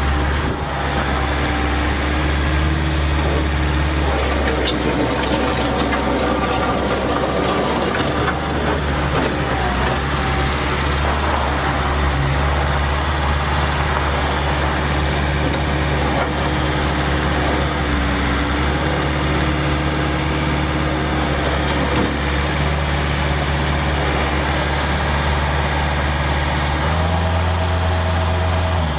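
Bobcat 753 skid steer loader's diesel engine running steadily, with its note changing about two seconds before the end.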